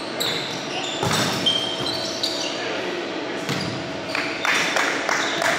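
Indoor volleyball play echoing in a large gym: several sharp hits of the ball, short high sneaker squeaks on the hardwood floor, and players' voices.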